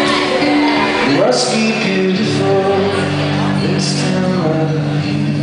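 Live song: a man singing over an electric guitar playing held chords.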